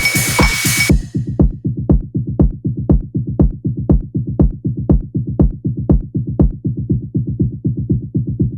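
Electronic dance music with a steady kick-drum beat about twice a second. About a second in, the high end cuts out, leaving only the muffled, bass-heavy beat.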